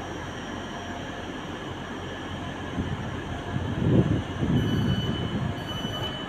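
Trains at a station platform: a steady low rumble that swells with a burst of low thumping about four seconds in. After that a high tone sounds on and off in short stretches, like wheel squeal.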